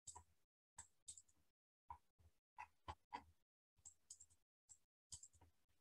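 Near silence broken by about a dozen short, faint clicks at uneven intervals.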